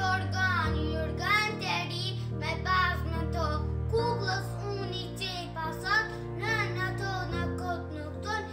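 A young girl singing a children's song over recorded backing music of held chords that change every few seconds.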